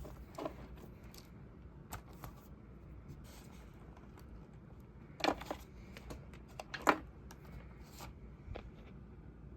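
Scattered light clicks and knocks of objects being handled, the loudest about five and seven seconds in, over a low steady hum.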